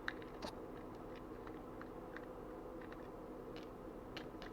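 Faint, scattered small clicks of a plastic key-finder fob being handled and unscrewed with a small screwdriver, over a low steady hum.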